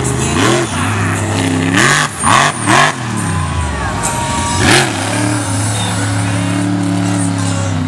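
Monster truck engine revving hard in repeated bursts, its pitch climbing and dropping, with the loudest surges around two to three seconds in and again near five seconds as the truck drives over the junk cars.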